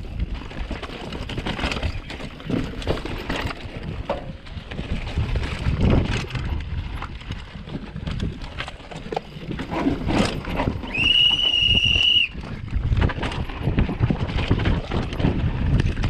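Mountain bike riding down a rocky dirt trail: tyres and frame rattling and knocking over rocks, with wind buffeting the helmet-mounted microphone. About two-thirds of the way through, a high steady squeal lasts about a second and a half.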